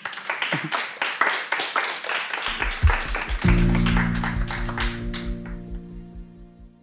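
Audience clapping, joined about three seconds in by closing music with a held chord over a low pulse; both fade out near the end.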